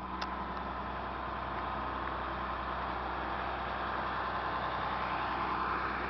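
A 1998 Thomas flat-nose school bus's engine idling steadily: a low hum with a faint steady whine above it.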